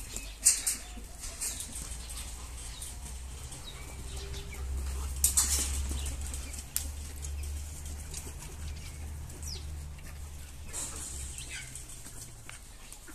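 Aseel chickens moving about a coop: scattered short rustles and what sound like wing flaps, with a few brief high calls, over a low steady rumble.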